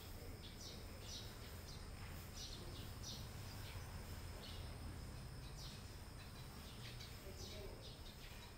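A cat eating and chewing: short crisp crunches recurring irregularly, roughly twice a second, over a faint steady background hum.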